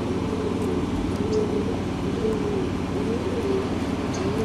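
Repeated short animal calls, each rising and falling in pitch, over a steady low hum.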